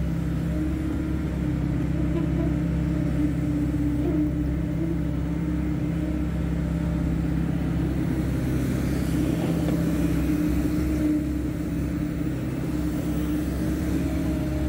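Hydraulic excavator's diesel engine running at a steady speed, a constant low hum with no change in pitch.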